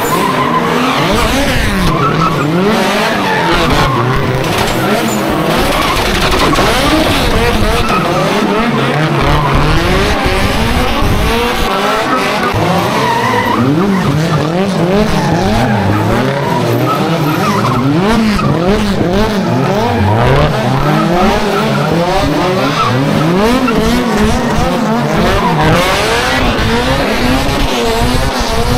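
Car engine revving hard, rising and falling in pitch over and over, with tyres skidding and squealing: a car being drifted.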